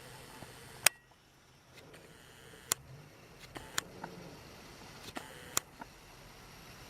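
Several sharp, isolated clicks at irregular intervals over a faint background hiss.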